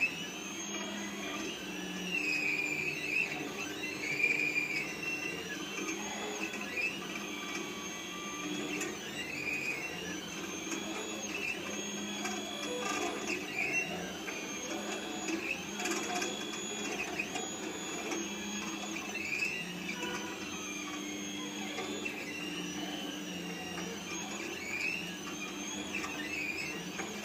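Automatic sugar-painting machine's drive motors whining as they move the syrup-dispensing head around the plate. The whine glides up and down in pitch, changing every second or two with each new stroke of the drawing, over a steady low hum.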